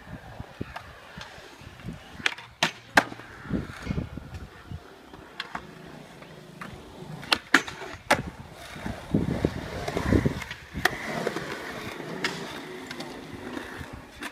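Skateboard wheels rolling on concrete, broken by several sharp clacks of boards popping and striking. Two clacks come close together around seven to eight seconds in, as a board goes onto a metal handrail.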